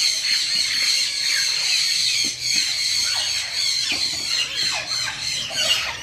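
Many aviary birds chirping and chattering at once: a dense chorus of short high calls over a steady high band.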